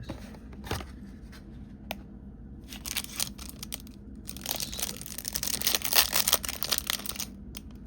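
Trading card hanger box and its wrapper being torn open, with crinkling and ripping packaging. The sound is loudest and most continuous from about halfway in to near the end.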